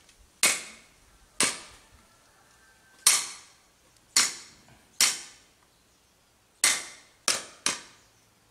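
Heavy cleaver smashing garlic cloves on a thick round wooden chopping block: eight sharp knocks at uneven intervals, about one a second, the last three coming closer together.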